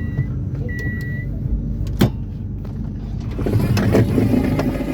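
Low rumble of a train carriage, with the last of a series of high electronic beeps about once a second, typical of a train door warning tone. A sharp click about two seconds in, then busier clattering noise near the end.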